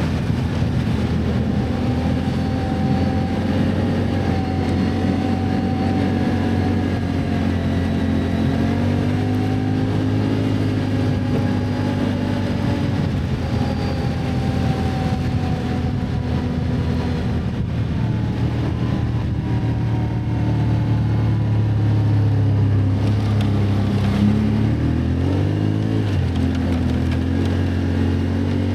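Can-Am ATV engine running under way, its pitch rising and falling with the throttle. Near the end it drops off briefly, then climbs again.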